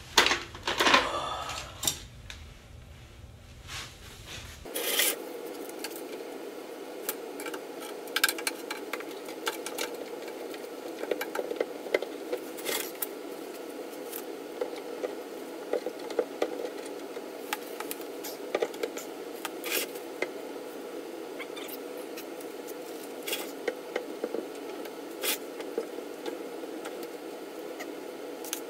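Handling of a steel fuel tank and parts on a concrete floor: a loud scrape about a second in, then many scattered clicks and knocks. A steady background noise comes in abruptly about five seconds in.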